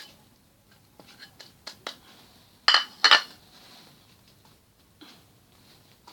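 A spoon clinking against a bowl: a few light taps, then two loud ringing clinks about a third of a second apart.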